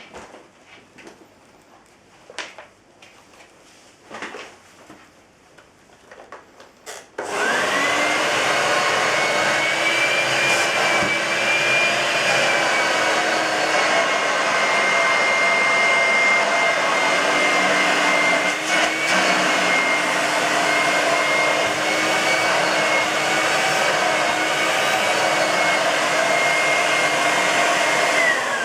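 A few clicks and knocks of handling, then the Vorwerk VK-117 upright vacuum cleaner's 250 W bypass motor is switched on about seven seconds in, quickly spins up to a steady high whine and runs; near the end it is switched off and the whine falls in pitch as the motor winds down.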